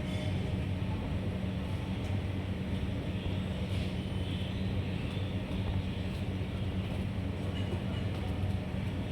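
A steady low hum over a constant noisy background, like a motor, fan or distant traffic, with a few faint short high chirps.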